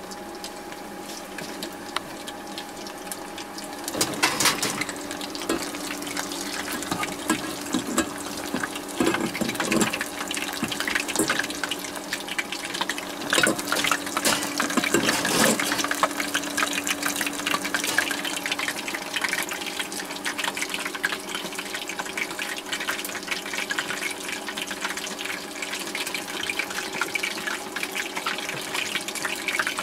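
Chicken pieces deep-frying in a pot of hot oil: a continuous sizzle thick with small crackles and pops, louder in a few bursts, over a steady low hum.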